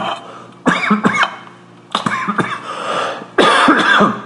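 A man coughing hard in three fits, the last the loudest, from the spicy Creole seasoning he has just sprinkled, which he puts down to being allergic to it.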